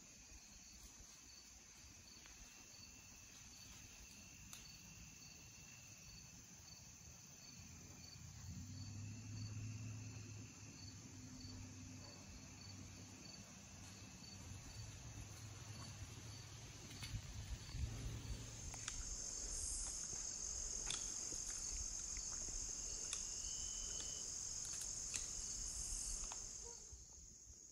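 Chorus of crickets and other insects: a steady high-pitched trill with a chirp repeating a little under twice a second. It grows louder about two-thirds of the way through and drops away just before the end.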